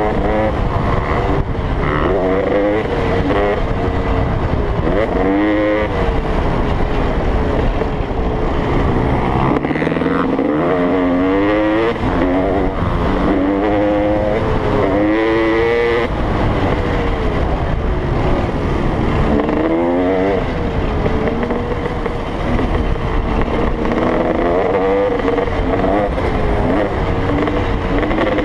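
Dirt bike engine heard from on board the bike, accelerating and shifting through the gears: its pitch climbs and drops back again and again, over a constant low rumble.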